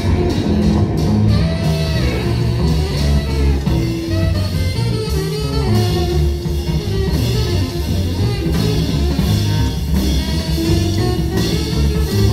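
Live instrumental jazz from a band of electric guitar, drum kit, double bass and a reed instrument, playing steadily with a prominent guitar line over bass and drums.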